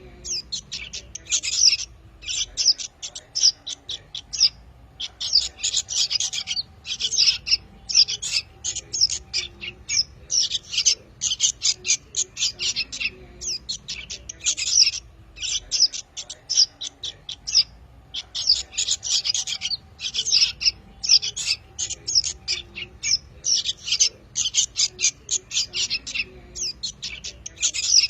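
Fledgling songbirds chirping in the original chick calls used as a bird-trapping lure: rapid, high, repeated chirps in long runs, broken by short pauses every few seconds.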